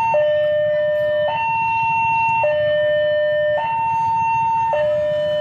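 Electronic two-tone warning alarm, loud and steady, switching between a low tone and a higher tone about every second without a break.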